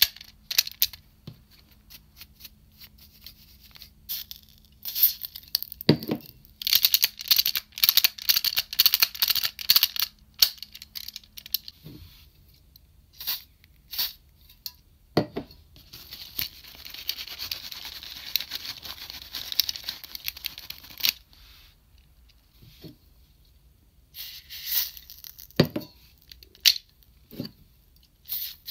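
Plastic toy train being handled, with paper rustling and small plastic clicks for the first ten seconds or so. About sixteen seconds in, an aerosol silicone spray hisses for about five seconds, followed by a few sharp clicks of plastic parts being worked.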